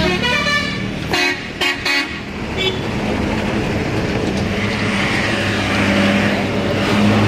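Horns blowing: a held pitched note at the start, two short loud blasts about a second and two seconds in, then a steadier tone over a low hum.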